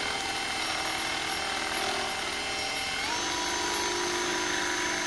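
Cordless drill running steadily as it drills into a metal plate, its motor whine stepping up in pitch about three seconds in.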